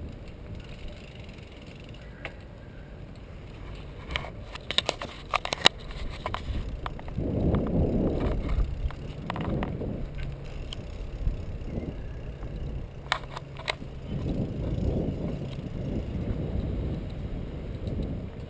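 Bicycle riding over pavement, heard from a camera mounted on the bike: a low rumble of tyres and wind buffeting the microphone, swelling and easing, with sharp rattling clicks as the bike jolts, in a cluster about four to six seconds in and a few more later.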